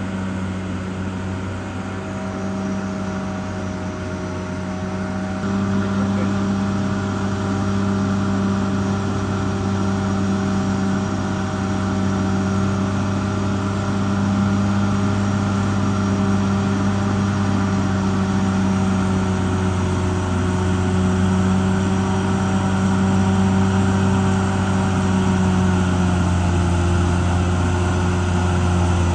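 Caterpillar D6R XL bulldozer's diesel engine running steadily under load, a deep even drone that grows louder about five seconds in.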